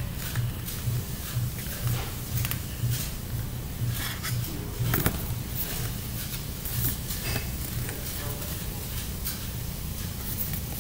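Scattered light clicks and rustles of a cardboard toy package being handled and turned over in the hands, over a low hum that pulses at a regular rate.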